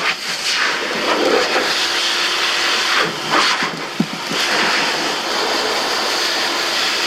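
AIIYME SH-168 pet grooming dryer blowing air on a low setting, a steady rushing hiss that shifts in tone as the airflow moves. A brief sharp click about four seconds in.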